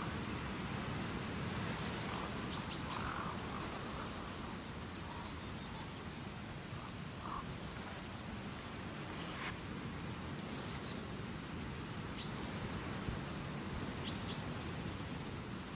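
A few short, high bird chirps over a steady outdoor hiss: a pair about two and a half seconds in, one more later, and another pair near the end.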